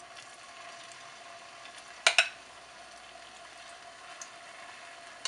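Cottage cheese pancake batter frying in hot vegetable oil in a skillet, a faint steady sizzle with small crackles as spoonfuls go in. A single sharp clink stands out about two seconds in.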